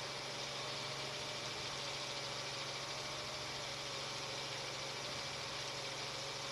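Steady news-helicopter cabin noise picked up through the crew's intercom microphones: an even hiss with a low hum and a faint, steady whine.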